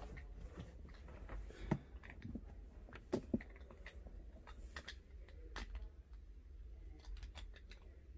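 Faint scattered clicks and knocks of handling and rummaging, a few at a time with the loudest ones about two, three and five and a half seconds in, over a steady low hum.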